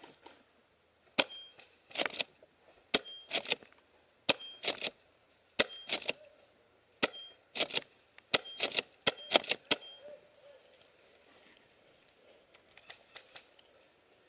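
Bursts of airsoft fire: rapid sharp cracks and clicks in clusters of two to six, about one cluster a second, stopping about ten seconds in, with a few faint clicks near the end.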